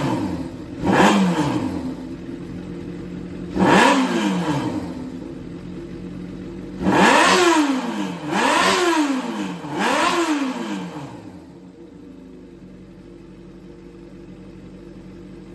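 Suzuki GSX400 Impulse inline-four engine, run as a loose engine assembly, blipped about six times, the revs rising sharply and falling back each time over a steady idle, then settling to a quieter idle for the last few seconds. The seller presents it as running without abnormal noise.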